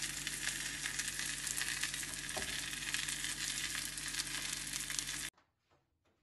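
Kababs sizzling in hot oil in a frying pan, a steady crackling hiss that cuts off abruptly about five seconds in.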